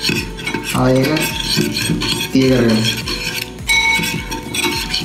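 Metal spoon stirring a thin spiced liquid in a ceramic bowl, with rapid clinks and scrapes as it hits the bowl's sides. Two short sounds that fall in pitch come about a second in and again near the middle.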